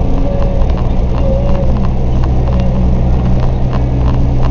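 Truck engine idling with a steady low drone, heard from inside the cab, with scattered light clicks and rattles.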